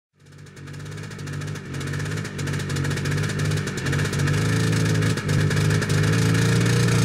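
Yamaha Bravo snowmobile's two-stroke engine running, fading in and getting louder as the sled pulls away through the snow.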